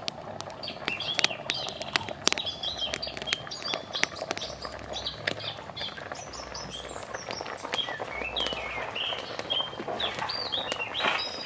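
Birds chirping repeatedly, mixed with sharp crackles and pops from firewood burning in a brick stove.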